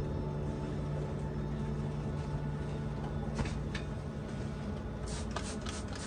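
Steady low hum of a running motor or appliance, with a few faint light ticks about three and a half seconds in and again near the end.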